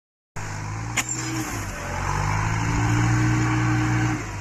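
Tractor engine working under load while it drags trees, a steady hum that grows louder through the middle and drops back just before the end. A single sharp click about a second in.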